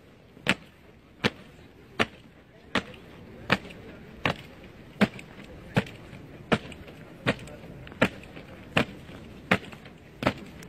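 A squad of soldiers marching in step, their boots striking the stone paving together in sharp, regular stamps about every three-quarters of a second.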